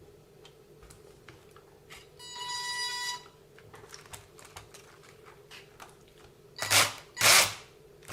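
A steady electronic beep of about a second, then two short bursts of the WLToys 144001 RC car's electric drivetrain spun up on the throttle. The drivetrain still grinds with the front differential replaced, showing the fault is not in the front.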